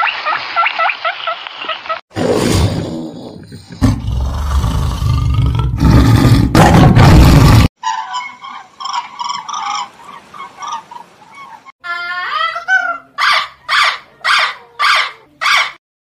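A run of different animal calls spliced one after another: a flock's dense overlapping honking chatter for about two seconds, then a loud, low, rough call lasting about five seconds, then rapid chirping, a call gliding in pitch, and near the end five evenly spaced calls.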